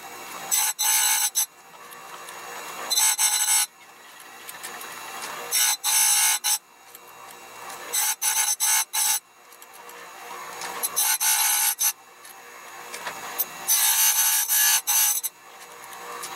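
A chainsaw chain being sharpened: clusters of short, scratchy rasping strokes on the cutters, about six clusters at roughly two-and-a-half-second intervals, with quieter rubbing between them.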